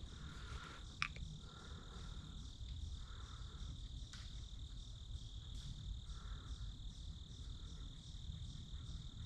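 An insect trilling steadily at a high pitch, with one sharp click about a second in.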